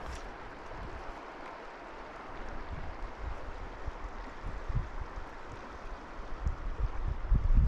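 River water flowing over stones, a steady rushing hiss.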